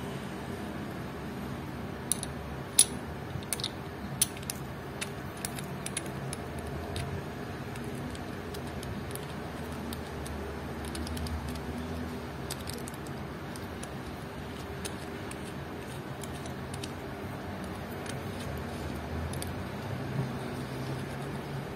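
Scattered small metallic clicks and taps as a stainless-steel watch case, its caseback and steel tweezers are handled, most of them in the first several seconds and fewer and fainter later, over a faint steady hum.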